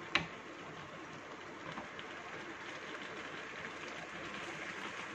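Jaggery syrup and vermicelli bubbling and sizzling in a frying pan over a flame turned up to boil off the water: a steady hiss. One sharp knock just at the start.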